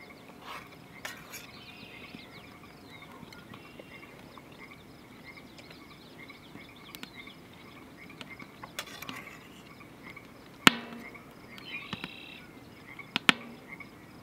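Frogs calling in a steady, repeating chorus near water, with a few sharp clicks: one about ten seconds in and two more near the end.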